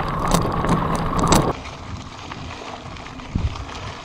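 Wind buffeting the camera microphone on a moving mountain bike, dense and loud with scattered clicks, then cutting abruptly about one and a half seconds in to quieter riding noise of tyres on a dirt-and-gravel path, with a single knock near the end.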